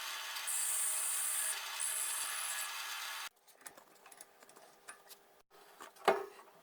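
Steady rasping of a tool working against material, stopping abruptly about three seconds in. Then a few faint light taps and one sharper knock near the end.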